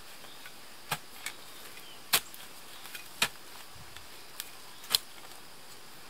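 A spade chopping into dry ground, digging a fire pit: sharp strikes at roughly one-second intervals, four loud ones and a few lighter ones between.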